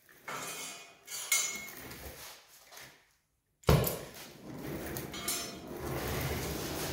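A few metallic clinks, then, after a brief silent gap, an oxy-fuel cutting torch lights with a sudden loud pop and burns with a steady rushing hiss.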